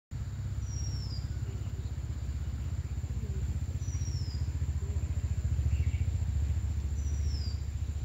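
A low, steady rumble, with a thin, high bird whistle falling in pitch three times, about three seconds apart, and a faint steady high tone behind.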